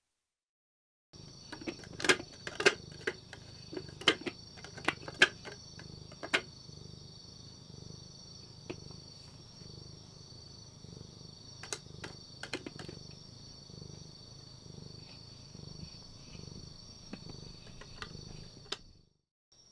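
A calico cat purring close up while having her cheek scratched: a low, evenly pulsing rumble. A steady high-pitched chirring of crickets runs behind it, and sharp clicks come in the first few seconds and again around the middle. Everything cuts off about a second before the end.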